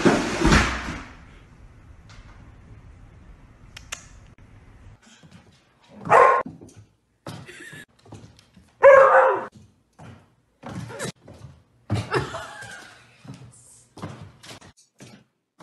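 A plastic laundry basket slides and thuds down wooden stairs. Then a dog barks several times, loudest about six and nine seconds in, with short sharp taps between the barks.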